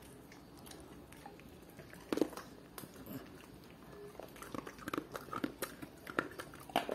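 Pets chewing dry kibble taken from a hand: scattered, irregular crunches and clicks, one louder a couple of seconds in and a denser run near the end.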